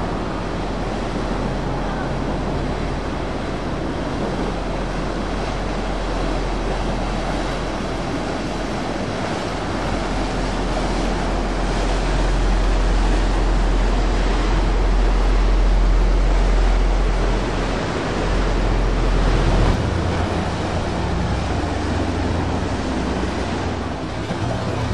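Rushing, churning canal water and boat wakes, over a steady low rumble from a center-console boat's outboard engine. The low rumble swells in the middle and changes in character about twenty seconds in.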